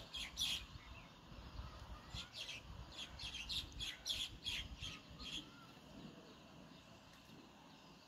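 House sparrow chirping: a few chirps at the start, then a quick run of repeated chirps from about two seconds in to about five and a half seconds in, after which they stop.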